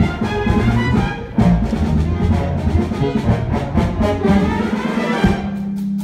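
Brass-led orchestral chase music with drums beating underneath, settling on a long held low note near the end.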